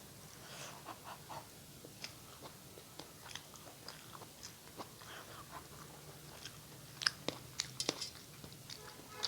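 Close-up chewing and wet mouth clicks of a person eating a meal of rice and curry, with a few sharper crunches about seven to eight seconds in.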